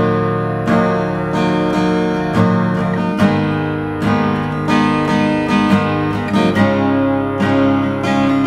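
Acoustic guitar strummed through plain chords, a new stroke every half second or so, on strings not yet cleaned of grime. The player holds that such dirty strings vibrate less and sound dull, with less ring.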